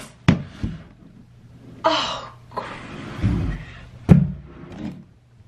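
A fabric storage bin being shoved onto a closet shelf and pulled back off, scraping and knocking against the shelf a few times. The loudest knock comes about four seconds in. The bin is too big for the shelf.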